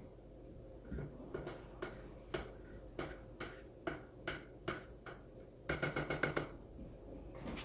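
Paint stir stick knocking against the inside of a metal gallon paint can while stirring paint, about two knocks a second. Near six seconds comes a quick run of about eight taps, the stick against the can's rim.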